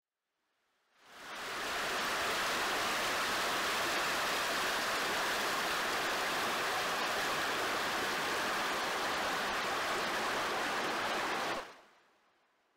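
River water rushing over rocks: a steady, even hiss of flowing water that fades in about a second in and fades out near the end.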